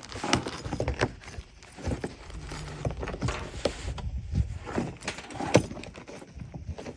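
Irregular clicks and knocks of a plastic MC4 solar connector being handled while its cap nut is tightened onto the cable; the loudest knock comes about five and a half seconds in.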